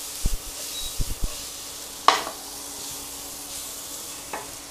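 Julienned carrots and onions sizzling gently in oil in a non-stick pan on low heat, stirred and pushed around with a wooden spatula. A few soft knocks in the first second or so and a sharp tap about two seconds in.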